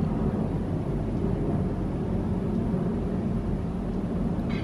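A steady low rumble, with a brief click near the end.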